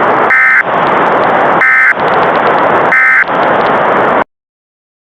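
Three short bursts of EAS (SAME) digital data tones, a warbling two-tone buzz, about 1.3 s apart over steady radio static: the end-of-message signal closing the alert. Everything cuts off suddenly about four seconds in.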